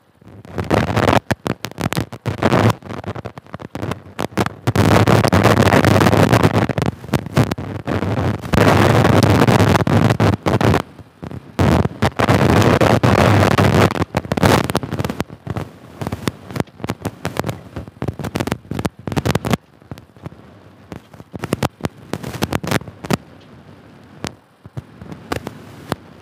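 Wind buffeting and crackling on the microphone of a moving motorcycle: irregular sharp pops, with several long stretches of loud rumbling gusts in the middle. The crackle thins out toward the end.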